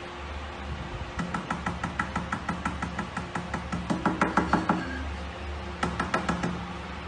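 Rapid tapping, about five knocks a second, for a few seconds, then a shorter run near the end, over a low steady hum.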